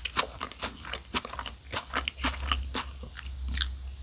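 Close-miked chewing of a ricotta club sandwich with crisp lettuce: irregular crunches and wet mouth clicks, several a second, with a bite into the sandwich near the end. A steady low hum runs underneath.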